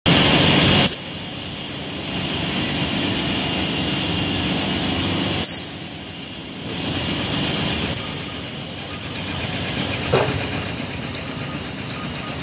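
Automated LED production-line machinery running with a steady mechanical drone, with a short hiss about halfway and a sharp click near the end.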